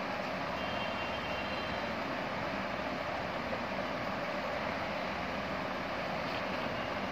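Steady background noise with no speech, and a faint high tone held briefly about a second in.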